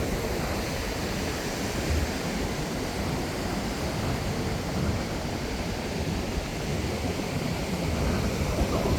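Ocean surf washing steadily, with wind buffeting the microphone in uneven low rumbles.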